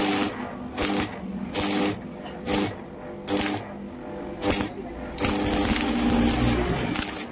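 Stick (arc) welding on a steel gate frame: short bursts of arc crackle, several brief tack strikes under a second apart, then a longer run of about two seconds near the end. A steady hum sounds in the pauses between the strikes.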